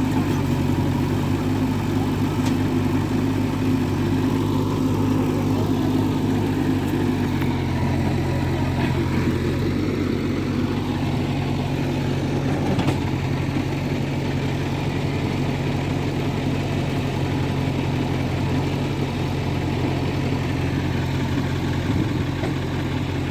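Diesel engine of heavy machinery running steadily at low revs, its note shifting slightly about seven seconds in.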